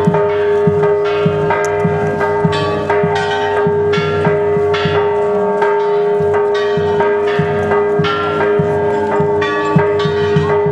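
Church bells being rung rapidly, struck over and over about twice a second, with the tones ringing on continuously between strikes.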